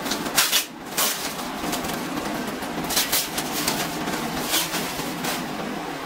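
Clear plastic bag crinkling and rustling in irregular bursts as it is pulled off and stripped away by hand.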